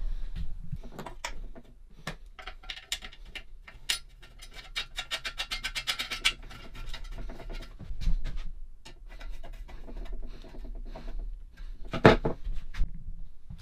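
Metal parts of a flame gun being handled and fitted: the steel burner shroud is worked onto its brass feed tube with scattered clicks and scrapes, and a fast run of rasping ticks around the middle. There is one sharp knock near the end.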